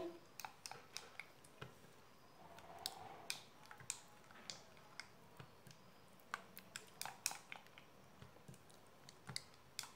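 Faint, irregular clicks and taps of a silicone spatula against a metal saucepan while stirring a thick milky mixture.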